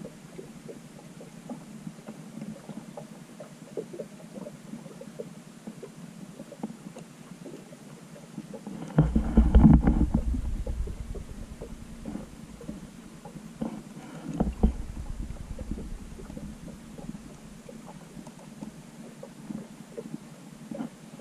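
Muffled underwater audio from a GoPro in its waterproof housing: a steady low hum with scattered faint clicks. A loud rumbling surge of water moving against the housing comes about nine seconds in, and a shorter one about five seconds later.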